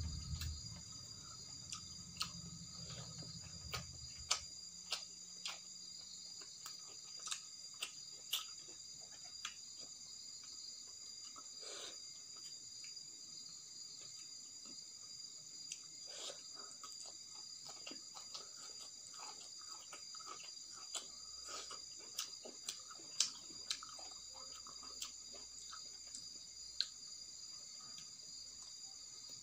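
Close-up eating sounds: irregular sharp clicks of chewing and of fingers mixing rice with boiled fiddlehead ferns. Under them runs a steady high chirring of crickets.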